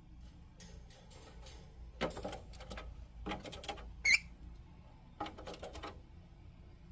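Lovebirds making clusters of quick clicks and scratchy rustles, with one short, sharp chirp about four seconds in that is the loudest sound.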